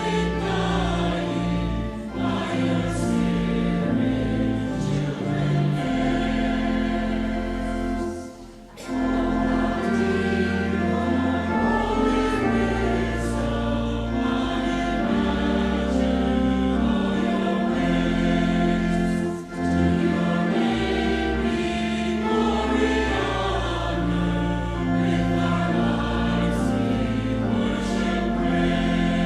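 Church choir singing a hymn over held bass notes, with two short breaths between phrases.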